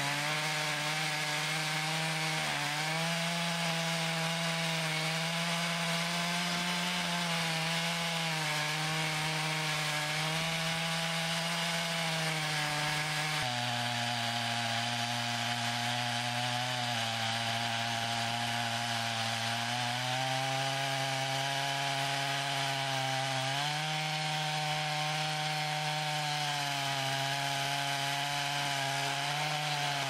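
Stihl 661 two-stroke chainsaw on an Alaskan chainsaw mill, running at full throttle while ripping a slab lengthwise through an oak log. The engine note wavers as it works under load, drops suddenly about halfway through, and climbs back in two steps later on.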